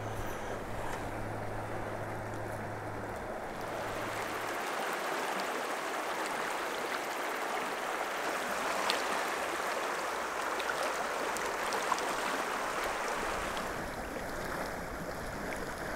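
River water rushing steadily over a rocky bed, growing fuller about four seconds in and easing slightly near the end. A faint low hum sits under it for the first few seconds.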